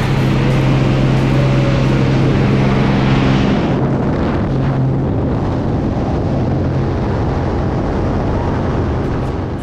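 Propeller engine drone and rushing wind inside the cabin of a small single-engine high-wing plane with its jump door open. A steady low hum stands out for the first few seconds, after which the wind rush takes over.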